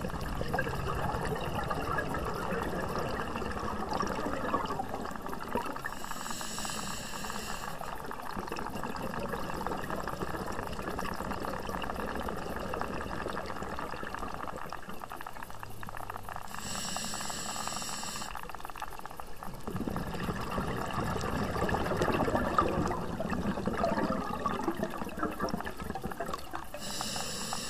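Scuba breathing heard underwater through a regulator: long gurgling rushes of exhaled bubbles broken three times, about ten seconds apart, by a short hissing inhale.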